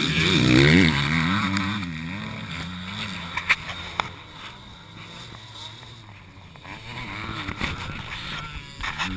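Motocross bike revving hard as it rides over a jump close by, its engine note fading as it pulls away, with other dirt bikes running in the distance. Two sharp knocks come about three and a half and four seconds in, and another bike's engine grows louder near the end.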